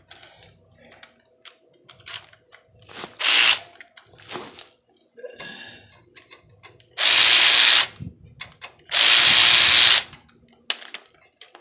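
A handheld power tool runs in short bursts, about a second each and twice near the end, driving in a tailpipe mounting bolt. Metal clinks and knocks from handling the tools and parts come between the bursts.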